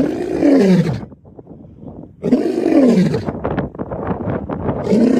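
Lion roaring: two long roars that fall in pitch, about two seconds apart, followed by a run of short grunting calls.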